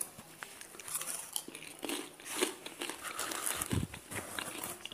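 Close-up biting and chewing of crunchy food: irregular crisp crackles and crunches, with a few duller chewing thuds near the end.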